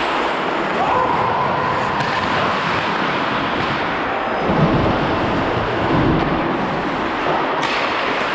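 Ice hockey play heard from a skating referee's helmet camera: a steady rush of skates on ice and air over the microphone, with a dull knock about four and a half seconds in.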